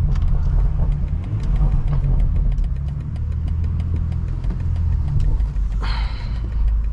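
BMW M340i's B58 turbocharged straight-six, on a stage 2 tune with a catless downpipe, running steadily at low speed with a deep drone. A short higher-pitched sound comes through about six seconds in.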